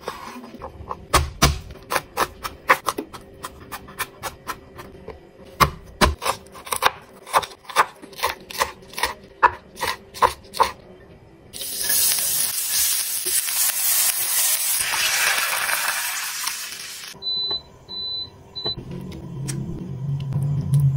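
A chef's knife chopping on a wooden cutting board, sharp knocks about two or three a second, slicing raw chicken and then spring onions. About twelve seconds in, a loud sizzle of food frying in a pan takes over. Three short electronic beeps and a low rumble follow near the end.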